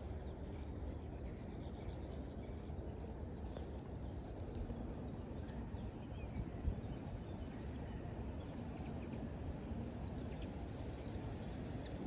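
Outdoor ambience: a steady low rumble with small birds chirping faintly now and then.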